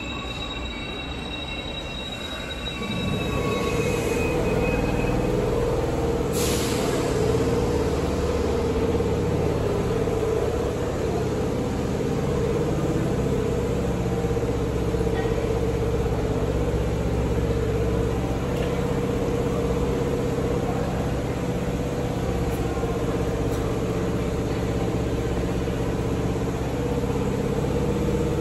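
Train noise in an underground station: high wheel squeal fading out over the first couple of seconds, then about three seconds in a steady heavy rumble with a constant hum sets in and holds.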